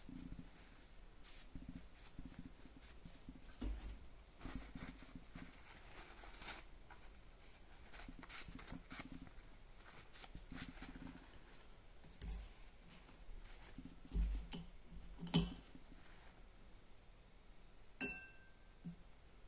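Small metal parts of a linear bearing carriage being handled during cleaning: quiet rubbing and handling noise, with a few sharp metallic clinks in the second half. The last clink, near the end, rings briefly.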